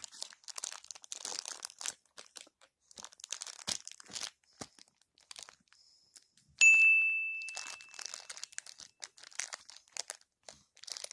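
Soft plastic wipes pack crinkling and its plastic flip-top lid clicking as a baby grabs and handles it. About six and a half seconds in, a single loud, bright ding rings out and fades over about a second.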